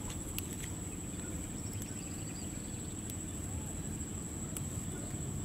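Outdoor field ambience: a steady, high-pitched insect drone over a low rumble, with a few light clicks of plant stems being handled.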